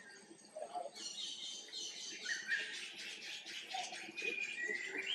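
Birds chirping and calling, a run of many short, high notes that thickens about a second in.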